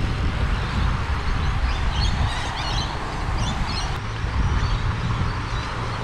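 Wind buffeting the microphone with a choppy low rumble. Birds chirp in a short flurry from about two to three and a half seconds in. A low steady hum joins about four seconds in.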